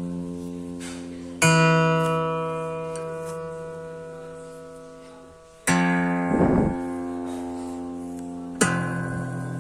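Acoustic guitar with single chords strummed slowly and left to ring out, three strums about four seconds apart, each fading gradually. A brief rattle comes just after the second strum.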